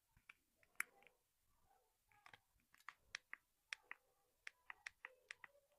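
Faint, irregular clicks and taps from small objects being handled, about a dozen short ticks with no steady rhythm.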